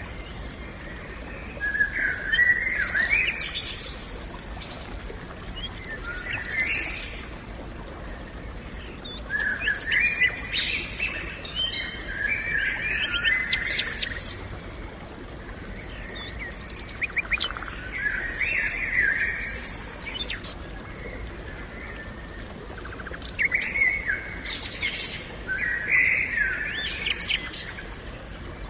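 Several birds singing in a forest, short phrases of chirps and warbles coming every few seconds over a faint, steady background hiss.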